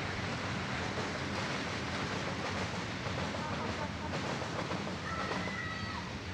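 Steady rushing outdoor background noise, with a faint high chirp-like tone lasting about a second around five seconds in.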